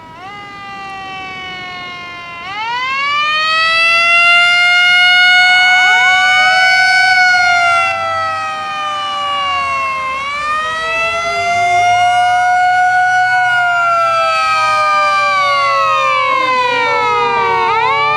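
Several fire-service emergency vehicle sirens wailing at once, their rising and falling sweeps overlapping. About two and a half seconds in, a louder siren starts up and winds up in pitch.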